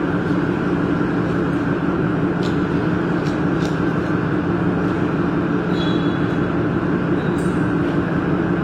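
Steady mechanical hum with an even rushing noise, unchanging throughout, with a few faint clicks.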